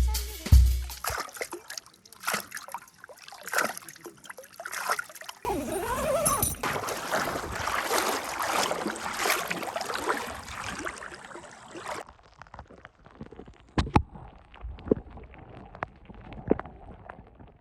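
Water splashing and sloshing, a denser stretch of splashing in the middle followed by scattered small knocks and drips.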